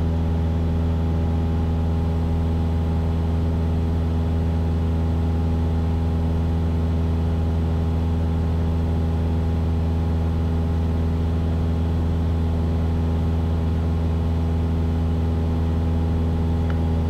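Steady drone of a Cessna 172's piston engine and propeller heard inside the cabin: an even low hum with several steady tones, unchanging throughout.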